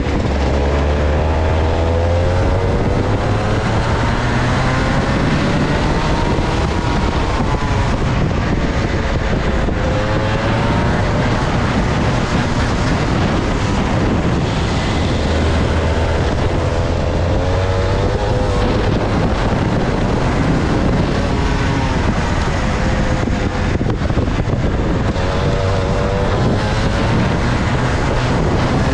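Two-stroke kart engine heard onboard, its pitch repeatedly rising as it accelerates and dropping back as it slows for corners.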